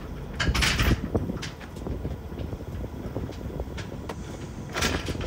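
Plastic sheeting wrapped around a load of crushed cars crinkling and rustling as it is pulled by hand, in two loud bursts about a second in and near the end, with small crackles between them over a low steady rumble.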